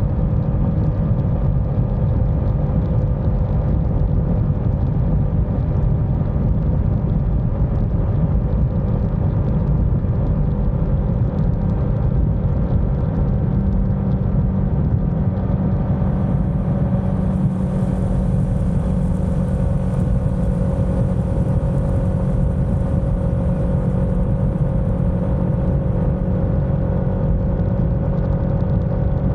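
Motorcycle engine running at a steady cruising speed, a continuous drone mixed with wind and road noise on the bike-mounted camera's microphone.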